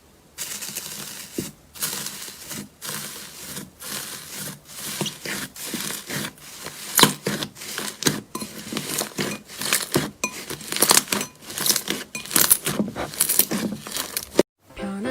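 Slime being squished and pressed by hand, giving a dense, irregular run of crackling and popping clicks.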